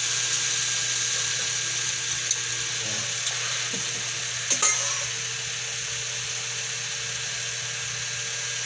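Marinated chicken legs and wings frying in a little oil in a hot wok (kawali), giving a steady sizzling hiss. A few light clicks come through the sizzle between about two and five seconds in, the loudest just after four and a half seconds.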